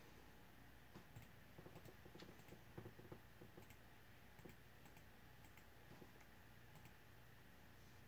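Near silence: the faint, steady low hum of a running Crompton Greaves High Breeze ceiling fan, with a scattered run of light, irregular clicks, most of them in the first half.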